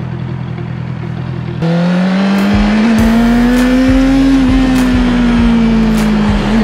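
Honda CB650R's inline-four engine idling, then about a second and a half in the sound jumps to the engine pulling under way at higher revs, its note rising a little and easing off again.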